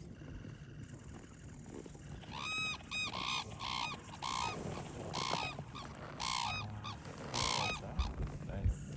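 Red-crowned cranes calling: a run of loud, ringing, arched calls repeated several times a second, starting about two and a half seconds in and stopping near the end.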